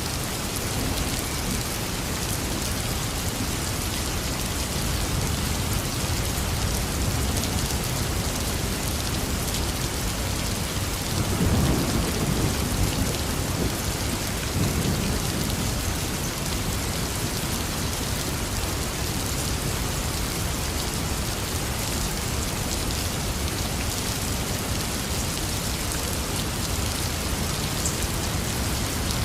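Heavy rain falling steadily, with thunder rumbling about a third of the way in and a smaller rumble shortly after.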